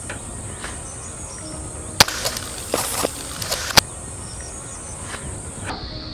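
A CO2 BB air pistol fired three times, sharp cracks about a second apart, over a steady high-pitched hiss that shifts lower near the end.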